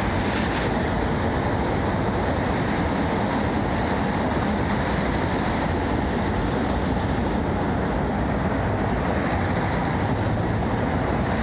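Steady rumble of street traffic and city noise, even and unbroken.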